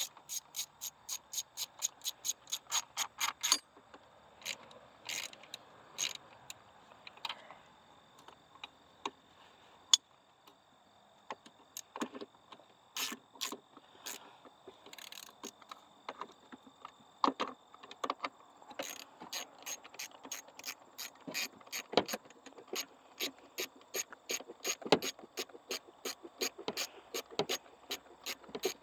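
Hand ratchet wrench clicking in quick, even runs of about three to four clicks a second, working a bolt on the engine; the clicking comes in a run at the start, turns sparse in the middle, then runs steadily again over the last ten seconds.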